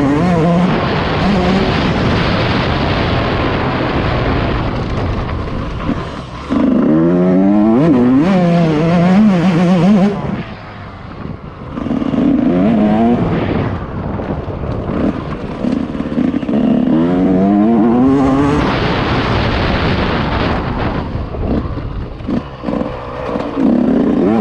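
Yamaha YZ 144 two-stroke single-cylinder motocross engine revving hard and falling back over and over as the rider works the throttle and gears around the track, with stretches of rushing noise. The throttle shuts off briefly about ten seconds in before the engine climbs again.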